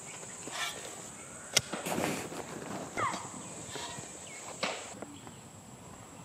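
Irregular thuds, scrapes and a few sharp knocks of a long-handled hoe and iron crowbar digging into red soil, mixed with footsteps on grass, over a steady high whine that stops about five seconds in.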